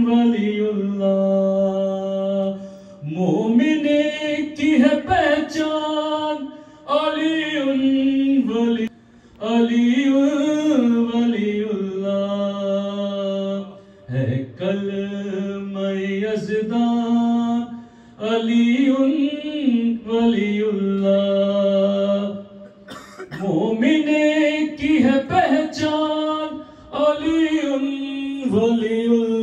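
A solo male voice sings an unaccompanied devotional recitation in long, drawn-out, ornamented phrases of a few seconds each. There are short pauses for breath between the phrases.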